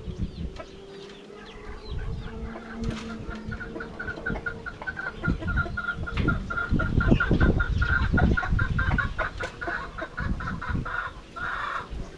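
Chickens clucking, with a long run of rapid repeated calls through most of the stretch, over irregular low knocks and thumps.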